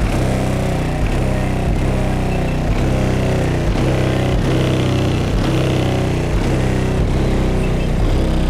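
Bass-heavy music played very loud through a single 22-inch MTX Jackhammer subwoofer in a car-audio system, with a steady beat. The low end is distorted on the camera's microphone.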